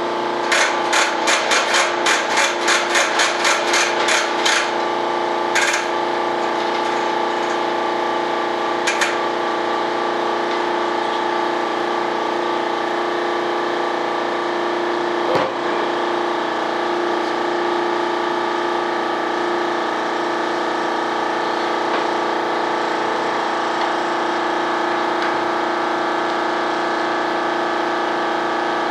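Workshop air compressor running with a steady hum after starting up, while an air blow gun fires short hissing blasts of compressed air: a quick train of about three to four a second early on, then two single blasts a few seconds apart. A single knock sounds midway.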